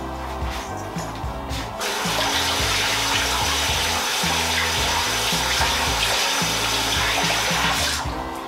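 Kitchen tap turned on about two seconds in and running steadily into a sink while hands are rinsed of spices, then shut off near the end.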